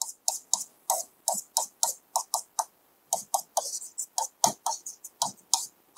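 Pen tip tapping and clicking on an interactive board's screen while writing, quick ticks about three to four a second with a short pause near the middle.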